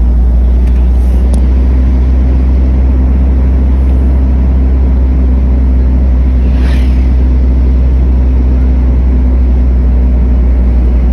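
Steady in-cabin rumble of a car driving along at road speed, engine and tyre noise together, with a brief hiss about six and a half seconds in.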